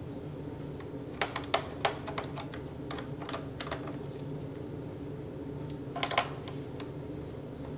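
Scattered light clicks and taps of a screwdriver and small screws against the plastic underside of a laptop while its case screws are being removed. A run of clicks comes in the first half and a quick cluster about six seconds in, over a steady low hum.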